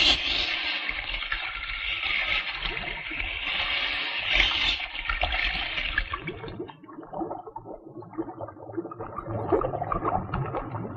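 Rushing, splashing water, loudest for the first six seconds, then dying down to lighter, scattered splashes.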